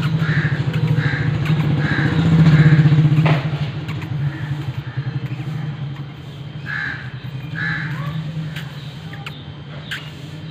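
A motor engine running at a steady idle, loudest in the first three seconds, with a crow cawing: a run of about five short caws, then two more later.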